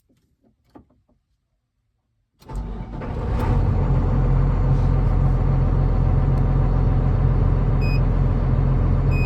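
A few faint clicks, then about two and a half seconds in the Doosan DX300LCA excavator's diesel engine starts and settles into a steady low idle. It is driving the freshly rebuilt Kawasaki K3V hydraulic pump.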